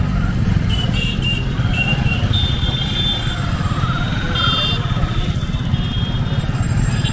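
Busy street traffic: motorcycle and scooter engines running close by in a steady low rumble, with short high-pitched beeps several times.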